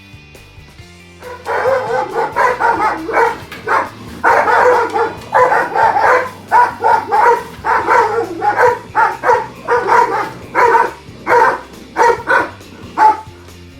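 Dog barking repeatedly, two or three short barks a second, over background music with a steady beat of low notes.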